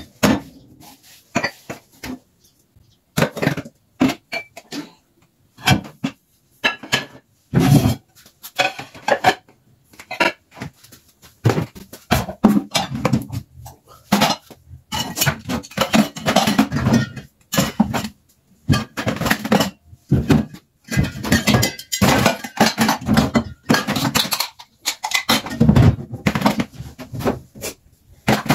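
Dishes and cutlery clinking and clattering in irregular bursts with short pauses, as crockery is handled and packed away.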